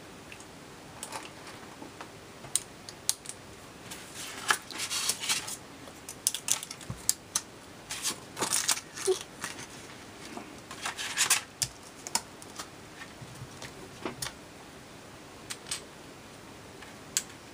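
Small clear plastic letter plates and a border strip being handled and set down on a perforated plastic board: irregular light clicks and taps, with a few short scraping rustles.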